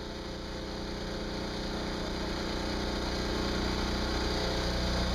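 A bus engine idling steadily, a low even hum with some street noise, growing gradually louder.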